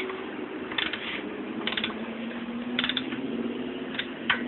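Ratchet wrench clicking in short bursts of rapid clicks, about one burst a second, as a tight bolt is turned.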